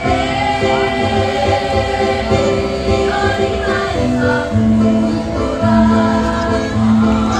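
A girls' school choir singing in harmony, holding long notes that change pitch in steps.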